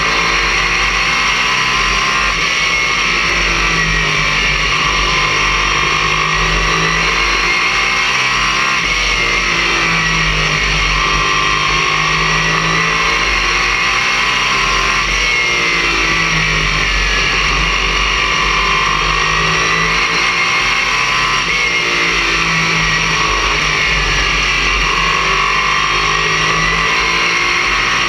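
Race car's V8 engine heard from inside the cockpit at racing speed, loud and steady, its note rising and falling again and again as the driver gets on and off the throttle around the oval, over constant road and wind noise.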